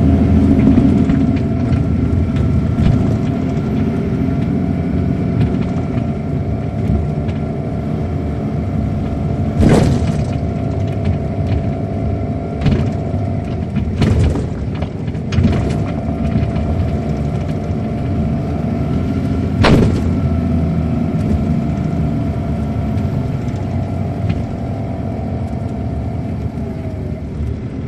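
Interior of an MCI D4500CL coach under way: its Caterpillar C13 ACERT diesel engine and road rumble run steadily with a steady whine over them. Sharp knocks from the bus body sound several times, about ten, fourteen, fifteen and twenty seconds in.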